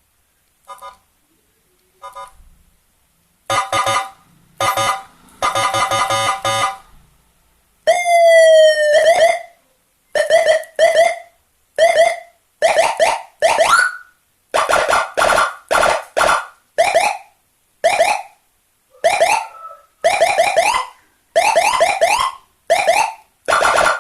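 Senken electronic siren module sounding a run of different tones: a few short beeps, then a steady horn-like blast, then a falling sweep, then many short rising whoops in quick succession.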